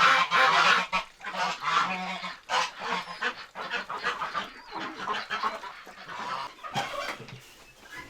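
A flock of farm fowl honking and calling, many harsh calls overlapping, loudest at first and thinning out toward the end.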